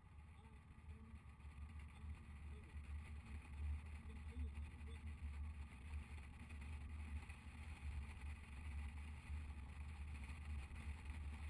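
Motorcycle on the move: a steady low rumble of engine and wind rush, which gets a little louder about two seconds in.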